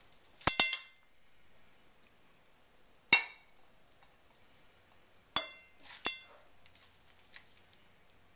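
Serving utensils clinking against dishes as salad is dished onto a plate: five sharp, ringing clinks, two close together about half a second in, one near three seconds, and two more around five and a half to six seconds.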